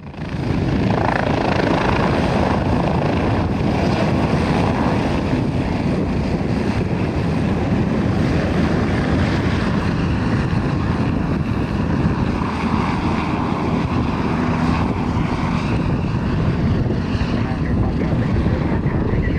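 Bell 407 helicopter with a Rolls-Royce turboshaft engine in flight, its main rotor and turbine making a loud, steady drone.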